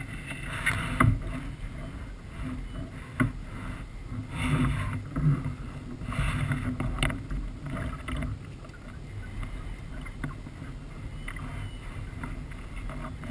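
Water splashing and sloshing as a landing net is worked beside a kayak and a hooked thick-lipped grey mullet thrashes at the surface, with a few sharp knocks in between.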